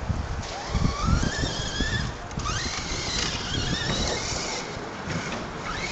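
Radio-controlled off-road car's motor whining, its pitch rising as the car speeds up, about a second in and again near three seconds, over a low rumble.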